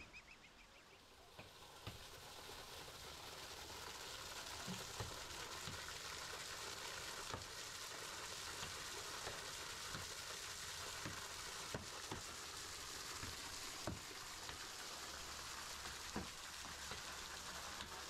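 Waterfall water splashing steadily onto a large rock, with sharp knocks every second or two from a sledgehammer and pickaxe striking the stone. The splashing swells in over the first couple of seconds.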